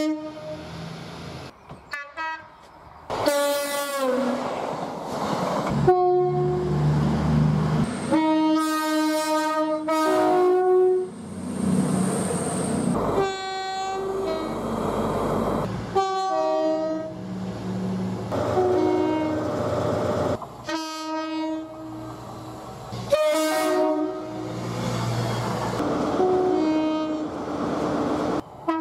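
Train horns sounding two-tone blasts, a higher and a lower note one after the other, in about ten short clips cut one straight after another, with train running noise between the blasts.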